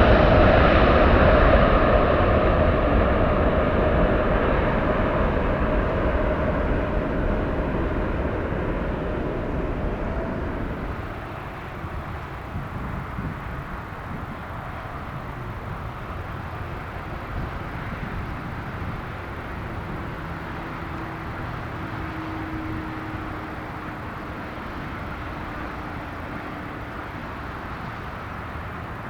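Jet noise from a Boeing 777's twin engines, fading steadily as the airliner climbs away, then dropping off sharply about eleven seconds in to a distant steady rumble.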